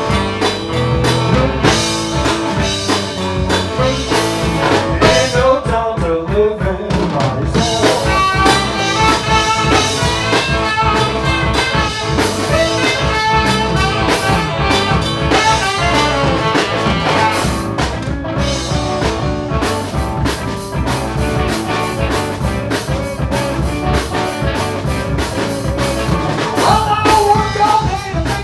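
Live blues-rock band playing an instrumental passage on electric guitar, bass guitar, drum kit and saxophone, with a steady beat. The singer comes back in near the end.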